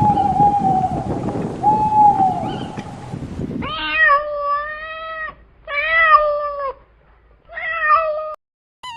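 Animal calls in two parts. First come a few falling calls over a rushing background noise. After a sudden change about three and a half seconds in, there are three long, drawn-out, meow-like calls, each shorter than the last.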